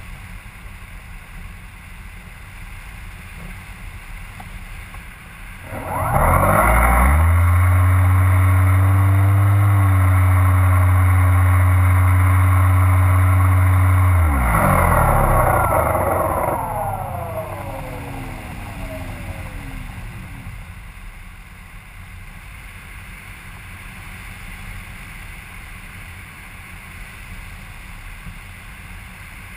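Motor and propeller of a camera-carrying model aircraft throttling up sharply about six seconds in, running at a steady pitch for about eight seconds, then cut and winding down with falling pitch until it fades. Before and after, only the steady rush of air past the aircraft.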